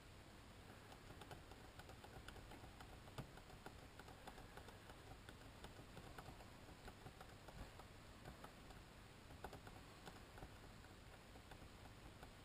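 Faint, irregular clicking of a laptop keyboard as a PDF datasheet is paged through, over near silence.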